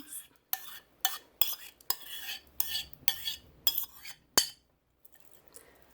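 A spoon clinking and scraping against a mixing bowl, about eight sharp knocks with short scrapes between them, as the wet muffin mixture is scraped into the dry ingredients. The sharpest knock comes near the end, and then the sound stops.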